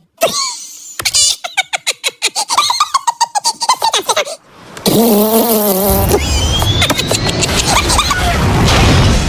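A string of cartoon sound effects: wobbling tones and a run of rapid clicks, then from about five seconds in a wavering tone over a buzzing low rumble, which cuts off suddenly at the end.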